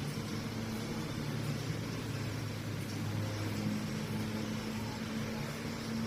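Cummins X15 (ISX) inline-six diesel engine running steadily, with the strange timing-gear noise that the owner puts down to badly adjusted camshaft gears.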